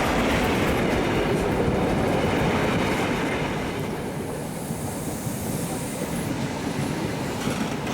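Passenger train pulling into the station platform, its noise fading over the first few seconds as it slows toward a stop.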